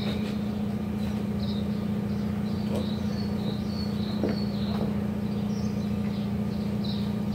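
Steady low hum with small birds chirping repeatedly over it, and a few sharp clicks of high heels on stone paving slabs.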